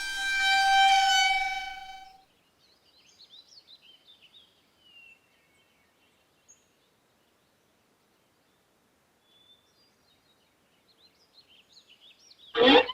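A sustained pitched tone fades out over about two seconds. Faint birdsong chirps follow, scattered over quiet outdoor ambience, and a short loud burst of noise comes near the end.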